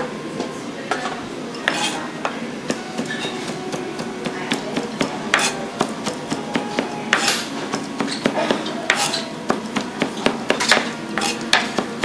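Chef's knife chopping fresh rosemary and thyme on a cutting board: a run of quick, uneven taps of the blade on the board.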